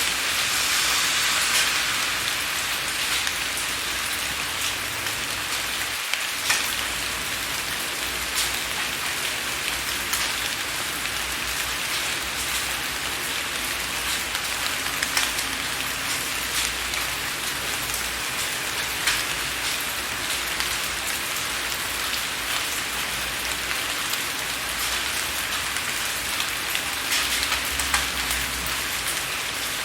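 Steady rain with drops pattering against a window pane, many separate sharp drop ticks over an even hiss.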